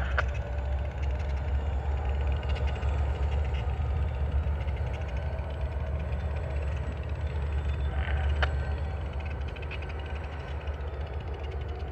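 Ex-Norfolk Southern NYSW diesel freight locomotives idling, a steady low rumble, with a sharp tick near the start and another about eight seconds in.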